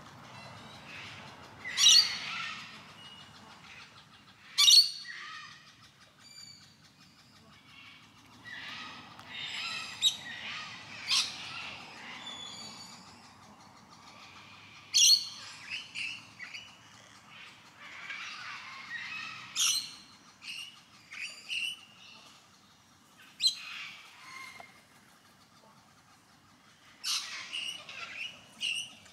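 Birds calling: sharp, harsh squawks a few seconds apart, with softer chirps and short whistles between them.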